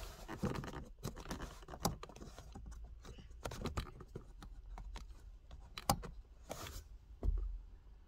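Hands handling a VW Polo Mk4's plastic handbrake warning light switch and its bracket under the handbrake lever: irregular small plastic clicks, knocks and rustling. There is a brushing sound about six and a half seconds in and a heavier thump just after.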